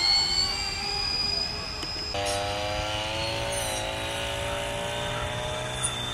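Engines of a four-engine B-17 model aircraft flying by, a multi-toned drone and whine. The pitch shifts over the first two seconds, then an abrupt change gives a steadier drone.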